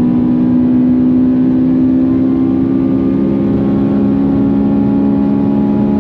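Honda Civic FN2 Type R's K20 four-cylinder engine running hard at high revs, its pitch sagging slowly and steadily.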